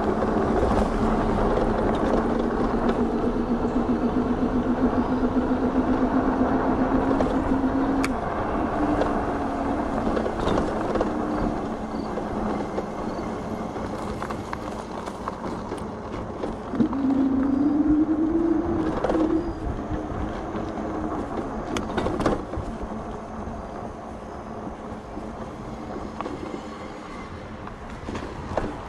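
E-bike's electric hub motor whining under throttle over a steady rush of wind and tyre noise. The whine rises slowly in pitch through the first several seconds as the bike speeds up. It climbs again, more quickly, about two-thirds of the way in, with a few sharp clicks along the way.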